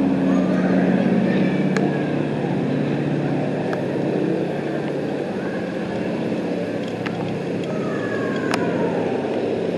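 An engine running steadily, its low hum strongest for the first few seconds and then easing, over constant background noise, with a few sharp clicks.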